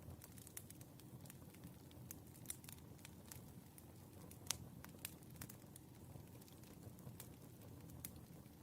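Firewood burning, with irregular faint crackles and pops over a low steady rumble. One sharper pop comes about halfway through.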